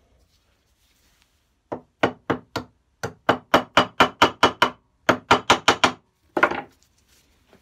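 Small hammer tapping a pin into a brass box hinge clamped in a metal vise: about seventeen quick, light metallic taps in three runs at about four a second, starting about two seconds in, then a brief scraping sound near the end.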